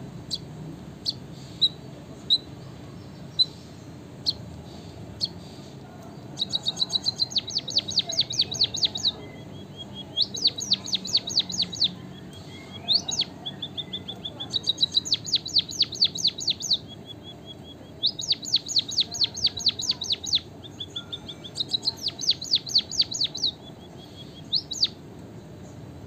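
White-headed munia singing: a few single high call notes, then from about six seconds in, five or six song phrases of rapid high ticking notes, each running into a thin, lower drawn-out whistle.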